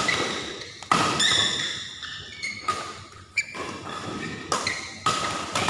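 Badminton rally: rackets striking the shuttlecock in sharp, echoing hits about a second apart, with short squeaks of shoes on the court floor between them.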